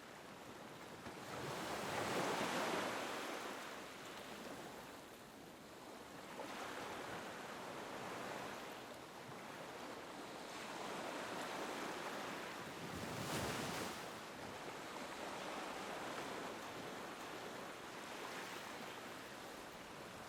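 Small waves lapping on a beach, the wash swelling and falling back in slow surges, the biggest about two seconds in and another, with a sharper hiss, around thirteen seconds in.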